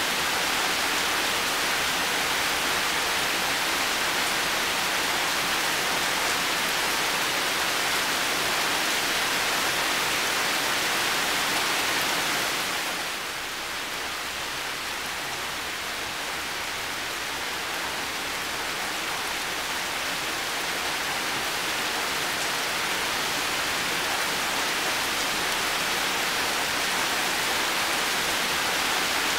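Heavy rain falling steadily, an even hiss of many drops; it eases and dulls a little about halfway through, then slowly builds back.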